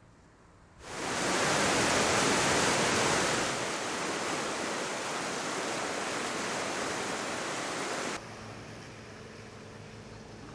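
Steady rushing outdoor noise with no tones, starting suddenly about a second in and dropping abruptly to a quieter level about two-thirds of the way through.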